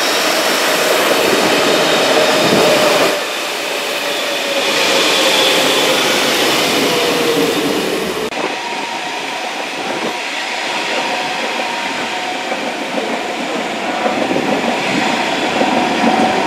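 Trains running past close by. First a red DB Regio diesel multiple unit runs along the platform with a slowly falling tone. After an abrupt cut about 8 seconds in, an ICE high-speed train rushes past with a steady whine.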